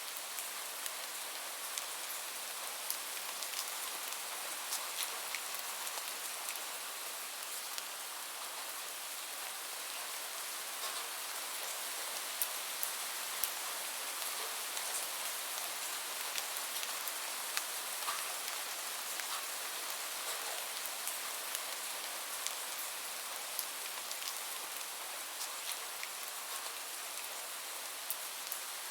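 Light rain falling steadily: an even high hiss with scattered individual drops ticking sharply through it.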